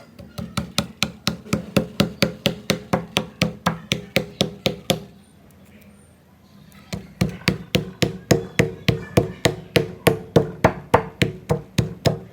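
Kitchen knife chopping quickly on a wooden cutting board, about four strokes a second, stopping for nearly two seconds midway and then starting again.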